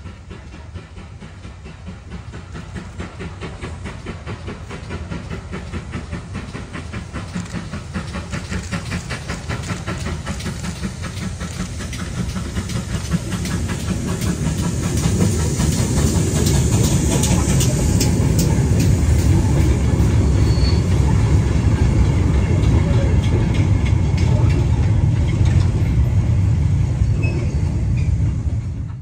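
GWR 8750-class pannier tank steam locomotive 9681 approaching and passing under steam, growing steadily louder over the first half with a rapid, regular beat. The train of wagons then rolls by close at hand, its wheels clattering over the rail joints, loud until the sound cuts off at the end.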